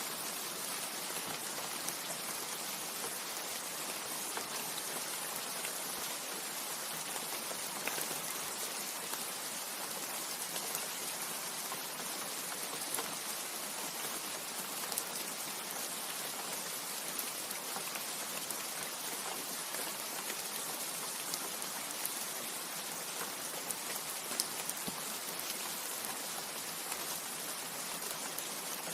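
Steady rain falling on leaves: an even, unbroken patter with many scattered individual drop ticks.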